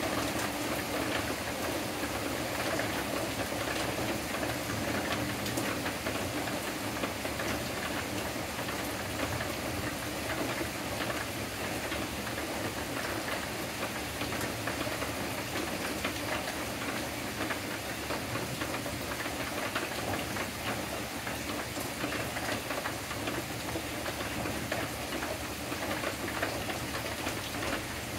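Steady rain from a thunderstorm falling on leafy trees.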